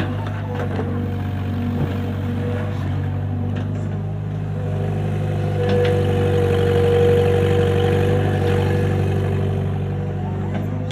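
Excavator engine running steadily, with a whine that swells and grows louder for a few seconds in the middle, and a few short knocks.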